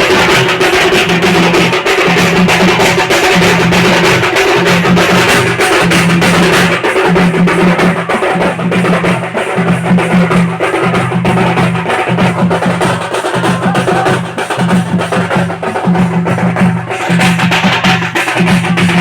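Loud music with a driving, repetitive percussion beat.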